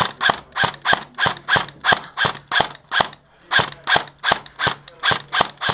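Airsoft rifle firing rapid single shots, about three sharp cracks a second, with a brief pause about three seconds in.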